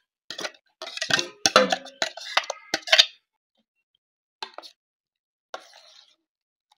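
Stainless steel vessel and ladle clinking and scraping against a steel mixing bowl as ground paste is poured and scraped out, in a busy run of metallic clatter for about three seconds. Two brief, fainter scrapes follow as the ladle stirs the wet cucumber mixture.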